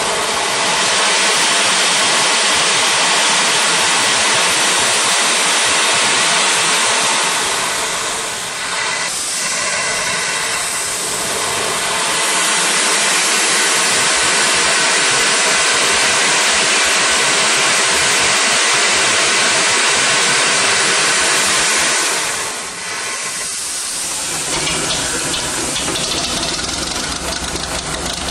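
Loud, steady hiss of steam blasting from a wide-open valve low on a 2-foot-gauge Henschel steam locomotive, easing briefly about eight seconds in and dying away a little after twenty seconds. In the last few seconds a steady, lower engine sound takes over.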